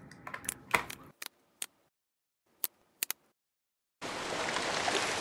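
A fork clicking against a plastic plate, then a few sharp single clicks in silence. About four seconds in, a splash sound effect, an even rush of noise lasting about a second and a half that fades out.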